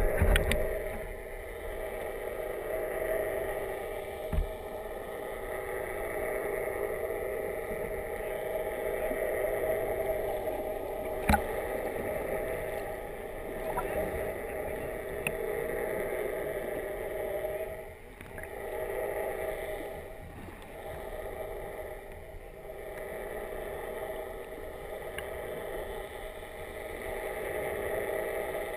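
Underwater sound picked up by an action camera in its waterproof housing: a muffled, steady drone that swells and fades slowly, with a low thump about four seconds in and a sharp click about eleven seconds in.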